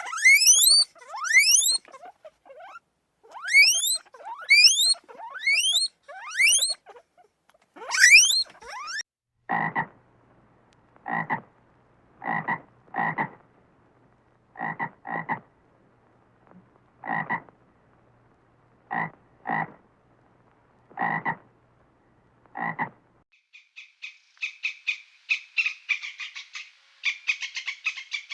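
A string of loud, high-pitched rising squeals, then a frog croaking in short single calls every second or so, followed near the end by a fast, rattling trill.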